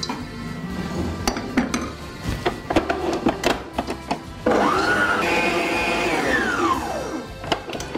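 Tefal stand mixer's motor starting up about halfway in, its whine rising in pitch, holding steady, then falling away near the end as the dough hook kneads stollen dough. Before it starts, light clicks and taps of zest and nuts being scraped into the steel mixing bowl.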